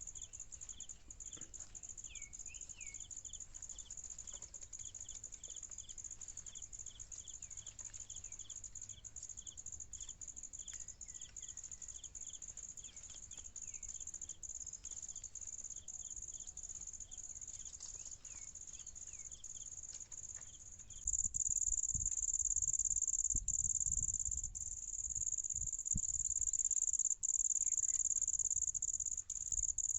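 Insects chirring in a steady high-pitched drone that turns noticeably louder about two-thirds of the way through. Over it, a short high chirp repeats two or three times a second in the first part, with a few other quick chirps. Near the end come scattered soft knocks and rustles, with some low rumble.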